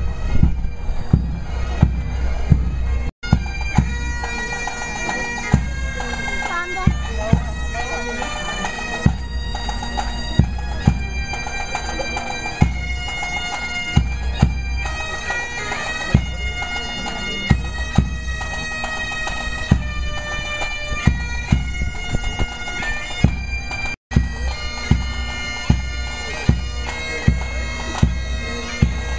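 Bagpipes and drums of a pipe band playing a march: a melody over the pipes' steady drone, with a drum beat marking the time. The sound drops out for an instant twice.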